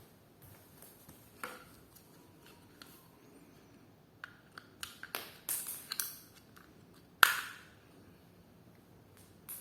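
Small hard parts of a solar light being handled during a teardown: scattered clicks and taps, a quick run of them in the middle, then one sharp knock that rings briefly about seven seconds in.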